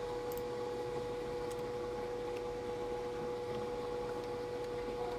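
Steady background hum: one constant mid-pitched tone over a light even hiss, with no change throughout.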